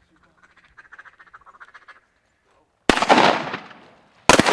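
Faint rapid duck-like quacking chatter, then two shotgun blasts about a second and a half apart, each echoing away.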